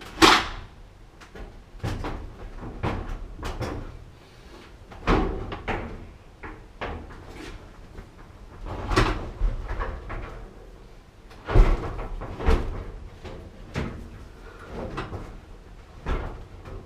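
Irregular knocks, clunks and clicks of sheet-metal appliance panels and parts being handled, with sharp louder clunks near the start, about 5 and 9 seconds in, and twice around 12 seconds, as a gas clothes dryer is taken apart.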